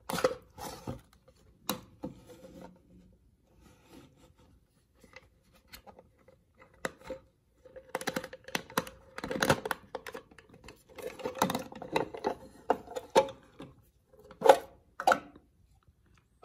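Hands working a cardboard watch box and its clear plastic sleeve: irregular rustling, scraping and sharp clicks as the box is opened. The noise is sparse at first, busiest in the second half, with two sharp clicks near the end.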